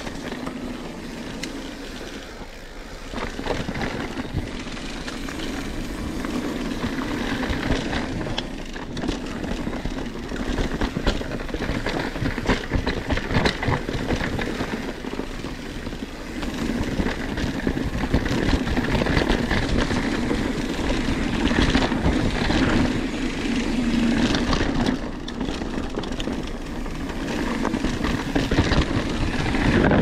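Mountain bike rolling fast down a dirt singletrack: a continuous rumble of knobby tyres on dirt and rock, with rattles and knocks from the bike over bumps, louder in the second half.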